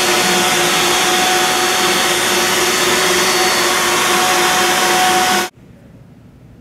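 CNC router spindle cutting EVA foam: a loud, steady whirring cutting noise with a steady whine running through it. It cuts off suddenly about five and a half seconds in, leaving a quiet, steady factory-hall background.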